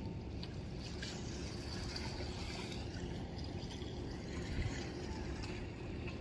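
Harbour ambience: a steady low rumble of wind and water, with a faint trickling hiss and a soft thump about four and a half seconds in.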